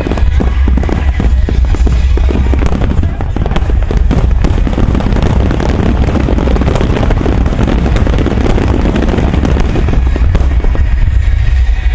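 Aerial fireworks: a quick run of shell bursts and bangs, growing about four seconds in into a dense, continuous crackling barrage, over a heavy low rumble.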